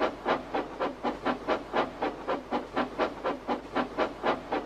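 Steam locomotive chuffing, an even run of puffs at about four a second.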